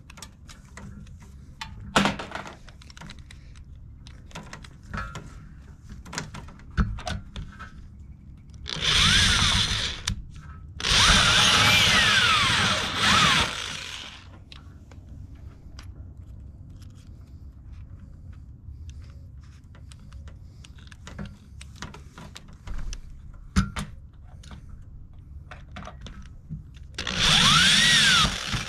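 Power drill run in three bursts, the second the longest, each winding up in pitch and then slowing, with knocks and clicks of tool and hardware handling between the runs.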